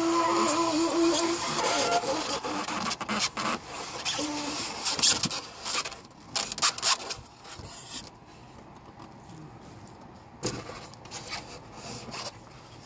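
A new truck radiator is slid out of its cardboard box: cardboard and foam packaging rubbing and scraping, with several sharp knocks. A brief whine sounds at the start, and the handling turns much quieter about eight seconds in.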